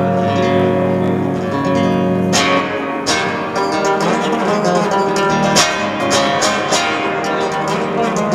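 Acoustic guitar playing held chords, then strumming in a steady rhythm from a couple of seconds in.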